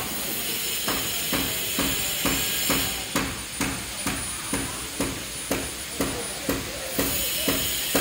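Steady, even hammer blows at about two a second, each with a short ring, from work on a construction site.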